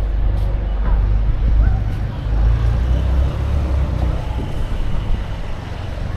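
Street traffic: a steady low rumble of passing road vehicles, with faint voices in the background.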